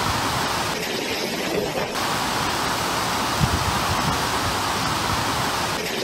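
Typhoon wind and heavy rain: a steady rushing noise with uneven low rumbles from gusts hitting the microphone.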